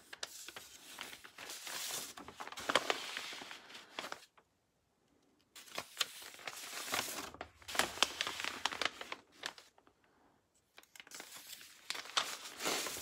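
Packaging of diamond painting kits crinkling and rustling as the kits are handled and sorted one after another, in three spells with short pauses about 4 s and 10 s in.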